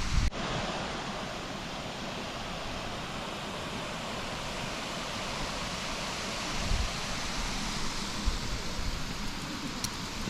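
Steady outdoor rushing noise, an even hiss like flowing water or wind, with no distinct events; the sound changes abruptly just after the start.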